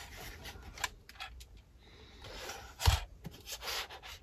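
Hands handling a plastic LEGO boat model: soft rubbing and small clicks of the bricks, with one sharp knock about three seconds in as the boat is set down on the tabletop.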